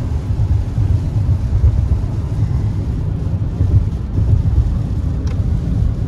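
Car driving at speed, heard from inside the cabin: a steady, loud low rumble of road and engine noise.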